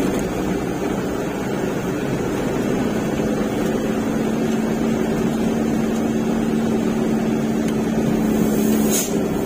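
Truck's diesel engine running steadily under way, its hum growing a little stronger and higher about three seconds in. A brief hiss comes near the end.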